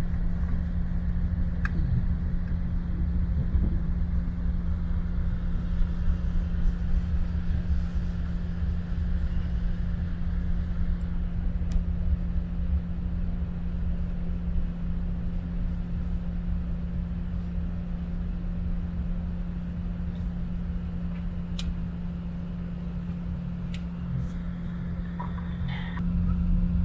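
Airliner cabin noise from a window seat as the plane rolls along the runway: a low rumble from the wheels and airframe under a steady engine hum, easing off slowly and picking up again near the end.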